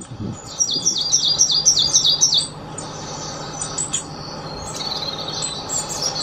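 Songbirds singing. A fast run of about nine repeated high chirps comes first, then softer, thin, varied high warbling phrases, which fit a European robin's song.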